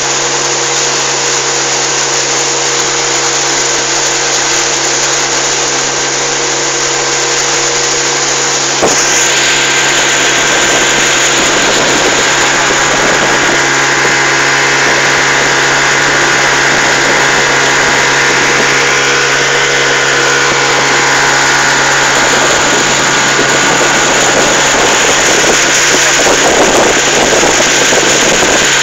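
A boat's motor running steadily at cruising speed, a constant engine hum under the rush of water and wind. About nine seconds in, the sound changes abruptly to a slightly louder, more hissing rush.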